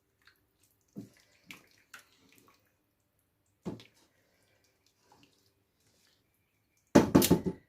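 A spoon knocking and scraping a few times in a pot of rice and boiling water as the rice is gently mixed, with faint water sounds. Near the end a much louder pitched, rhythmic sound starts.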